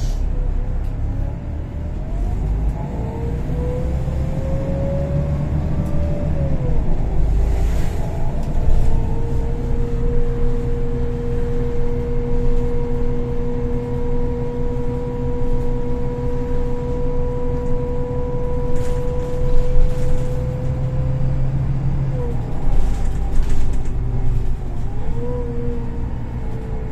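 Golden Dragon XML6125 city bus driving, heard from inside: a low engine drone under a whine from its Voith automatic gearbox that rises as the bus pulls away, holds one steady pitch for about fourteen seconds while it cruises, drops as it slows, and rises again near the end as it accelerates once more.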